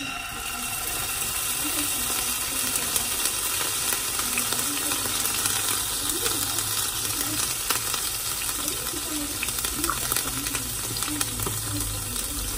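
Crushed garlic sizzling in hot oil in a frying pan: a steady hiss with many fine crackles.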